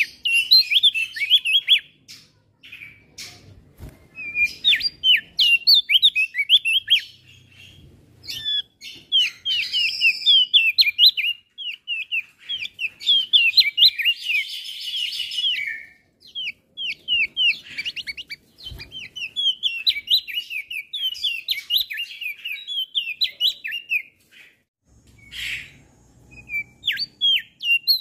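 Male opior jambul, a small white-eye-like songbird, singing hard: long runs of rapid, high, sweeping chirps, with a denser trill partway through and short pauses between runs.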